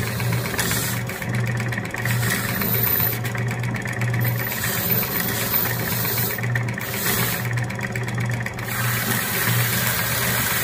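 Bench grinder running with a steady hum while a forged steel turtle is pressed against its spinning wire wheel, the wire scratching over the metal in several short spells to clean off the forge scale.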